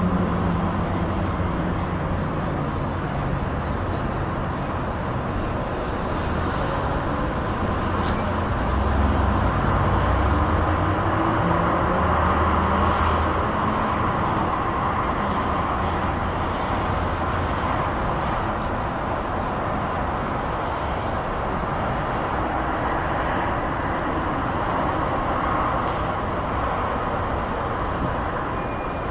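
Continuous hiss and low rumble of busy motorway traffic heard from a distance, swelling and easing gently as vehicles pass.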